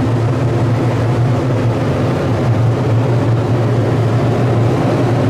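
Powder coating booth's extraction fan running steadily: a loud, even hum with a rush of air over it.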